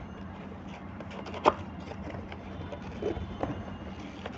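Quiet handling of a plastic 3-in-1 snack container, with one sharp click about one and a half seconds in and a few softer clicks and taps near three seconds.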